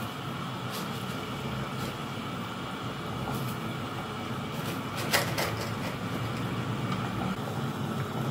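Pot of spiced biryani broth heating on a gas burner, a steady hiss of simmering liquid as it comes to the boil, ready for the rice. A few light clicks, the clearest about five seconds in.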